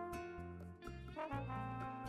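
Background instrumental music: held melody notes over a bass line, with light percussion keeping a steady beat.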